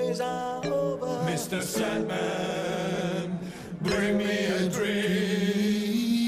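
Male vocal quartet singing a cappella in close harmony, several voices holding chords together, with a brief break about three and a half seconds in.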